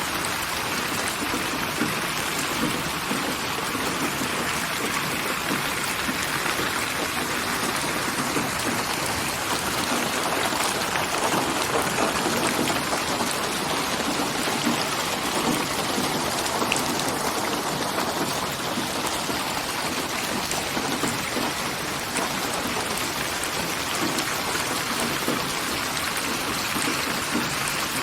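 Steady rain falling, a dense, even hiss of raindrops on a surface with no breaks or changes.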